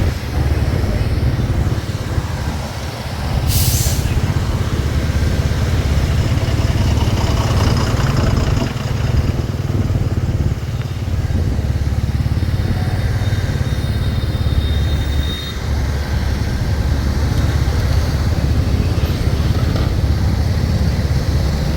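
Diesel locomotive running close by with a train, a steady heavy low rumble, with a short sharp air hiss about three and a half seconds in.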